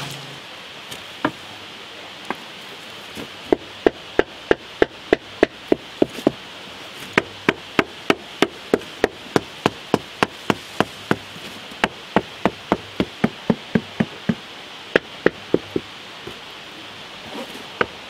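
Hammer tapping the wooden side boards of a form filled with wet concrete: sharp knocks about three a second, in several runs with short breaks, done to settle the concrete and work out air pockets against the forms.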